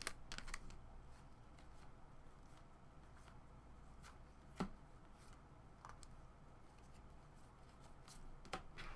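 Faint handling of baseball trading cards: cards being flipped through and slid against one another, with a few soft clicks, the sharpest about halfway through.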